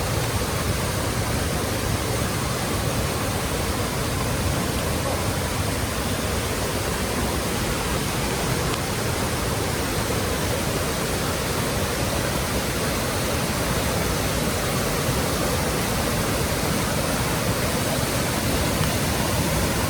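Steady, even rushing of water from a mountain river and its waterfalls.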